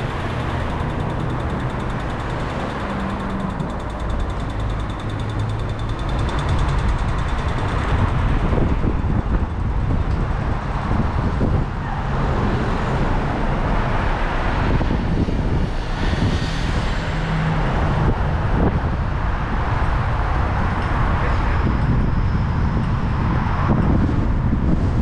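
Steady road noise from a Kia Cerato driving in town traffic: a low rumble of tyres and engine with surrounding traffic, getting a little louder about six to eight seconds in.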